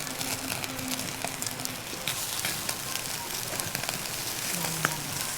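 Meat sizzling on a camp grill: a steady hiss thick with small crackles and pops.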